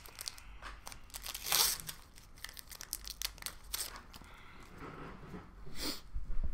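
Foil wrapper of a hockey card pack crinkling and tearing open in several short rustling bursts. The loudest bursts come about a second and a half in and near the end.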